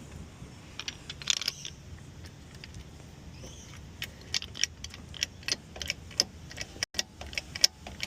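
Irregular metallic clicks and clinks from handling tools and brake parts during a brake pad change, a short cluster about a second in and many more sharp clicks through the second half.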